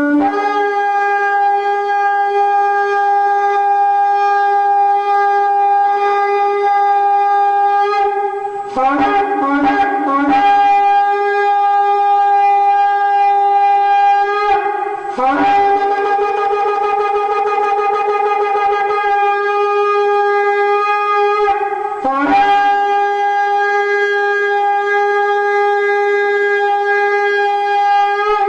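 Shofar (ram's horn) sounded in a series of long held blasts. Each blast starts on a brief lower note and leaps up to a steady higher one, with short breaks between the blasts.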